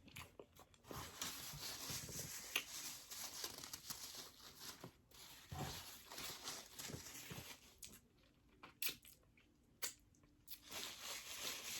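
Close-up eating and food-handling noises from a pizza and chicken-wings meal: tearing, crunching and crinkling in stretches. There is a mostly quiet gap about eight seconds in, with a couple of clicks.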